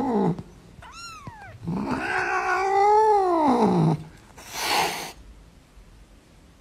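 A kitten gives one short, high mew, then an adult cat lets out one long yowl that rises and then falls in pitch, followed by a short hiss.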